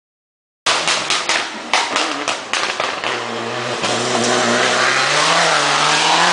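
Citroën DS3 rally car going through a hairpin: after a sudden start, a run of sharp pops as it comes through the corner, then the engine revving hard and rising in pitch as it accelerates away.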